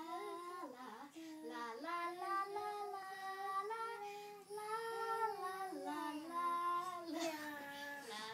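A child singing a tune in held notes that step up and down, with a short break about halfway through.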